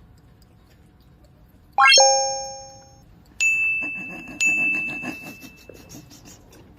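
A bell-like chime: a quick upward run lands on a ringing tone about two seconds in, followed by two higher, single-pitched dings about a second apart, each ringing out and fading.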